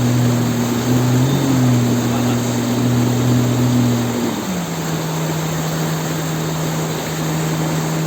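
Outboard motor driving a water-jet drive, running steadily under a loud rushing noise. About four seconds in, its pitch drops and then holds steady at the lower note.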